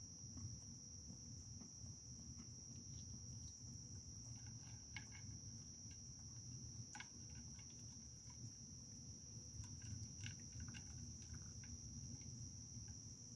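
Steady high-pitched insect chorus, typical of crickets, with scattered faint clicks and smacks of a raccoon feeding at a dish, busiest in the middle.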